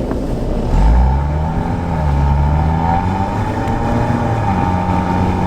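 Car engine running, its pitch rising and falling for a few seconds, then settling to a steady drone.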